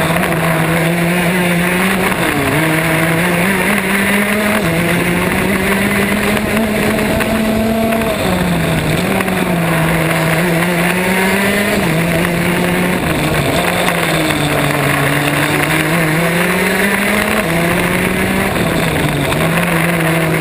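Racing kart engine heard from on board the kart at race pace. Its note climbs and then drops back every few seconds as the kart accelerates and slows through the corners.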